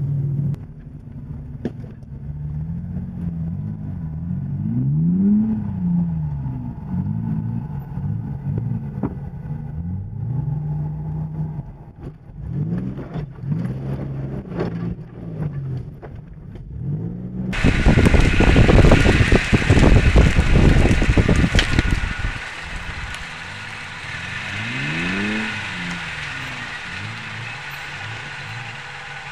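Off-road SUV engine revving up and down again and again as it crawls along a rough trail. About two-thirds of the way in, a loud rough noise covers it for about four seconds.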